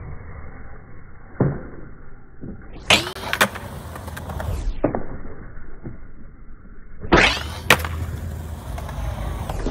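Skateboard wheels rolling on concrete, with sharp cracks of the board: one about a second in, then two pairs about half a second apart, like a tail pop followed by the landing.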